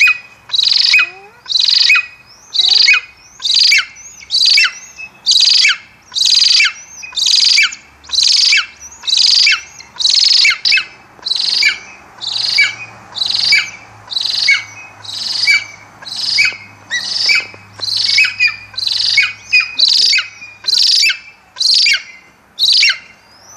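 Captive golden eagle calling over and over, a high, thin, downward-sliding yelp repeated about four times every three seconds.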